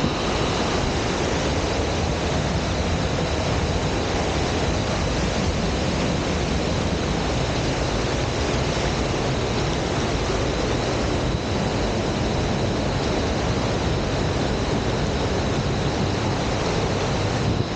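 Steady rushing noise with no breaks, overlaid by a faint, thin high whine.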